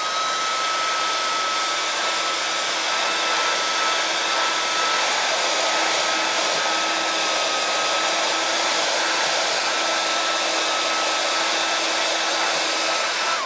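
Handheld hair dryer blowing steadily, its motor giving a high, even whine over the rush of air. It is switched off at the very end, the whine dropping away.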